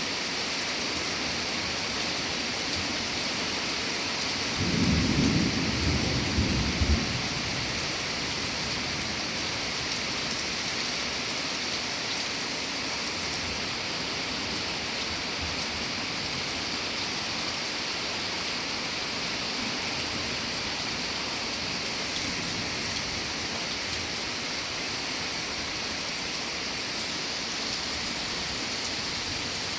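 Steady rain falling, with a low rumble of thunder about five seconds in that lasts a couple of seconds.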